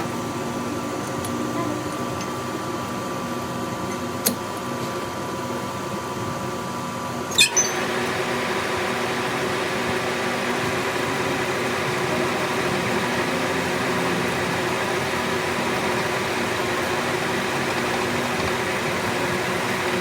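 A steady machine hum with a single click about four seconds in and two sharp knocks about seven and a half seconds in, after which the hum changes to a stronger steady drone.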